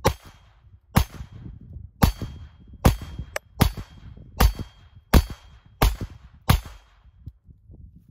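Glock 44 .22 LR pistol firing standard-velocity 40-grain lead solid rounds: nine shots in steady succession, about one a second, stopping near the end. The pistol cycles and feeds these rounds without a stoppage.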